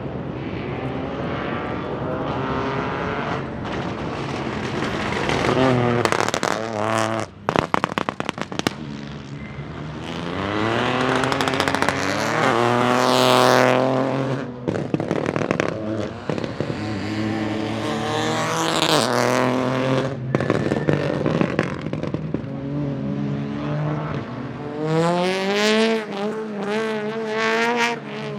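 Peugeot 208 Rally4's 1.2-litre turbocharged three-cylinder engine revving hard several times, its pitch climbing and dropping. A rapid burst of exhaust pops and crackles comes about six to nine seconds in.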